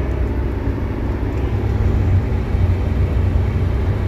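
The 1HD-T six-cylinder 4.2-litre turbo diesel of a 1991 Toyota Coaster, heard from inside the cab while cruising at highway speed. A deep, steady drone runs under even tyre and road noise.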